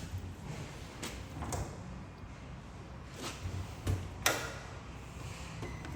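About half a dozen separate knocks and clunks, the loudest a little after four seconds in, over a low background rumble.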